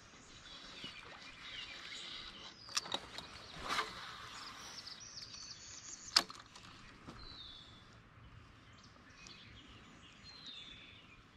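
Birds calling, repeated short high chirps, over faint outdoor background. A few sharp clicks and a brief swish come near the middle, with the loudest single click about six seconds in.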